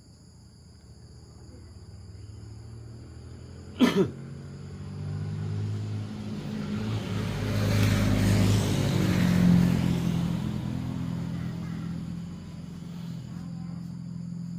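A motor vehicle engine runs steadily, growing louder to a peak about two-thirds of the way through and then fading as it passes. A sharp, loud sound with a falling tone cuts in once, about four seconds in, and insects keep up a steady high buzz.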